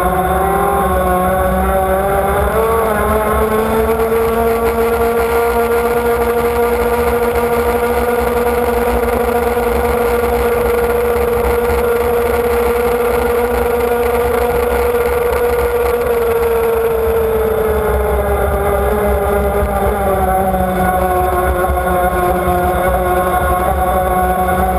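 The engine of a model offshore powerboat running at high revs, heard from on board. It makes one high engine note that rises a couple of seconds in, holds steady, sags about two-thirds of the way through and climbs again near the end, over a rush of wind and water.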